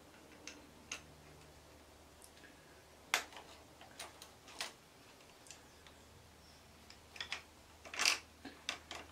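Scattered light clicks and taps of small metal parts being handled: an Allen key working on the Quad Lock extender arm and clamp bolts. They come irregularly, with the sharpest about three seconds in and a quick cluster near the end.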